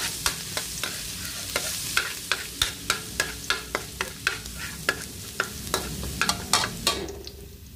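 Minced garlic sizzling in hot oil in a metal pan while a spatula stirs it, clicking and scraping against the pan about three times a second. The stirring stops and the sizzle fades near the end.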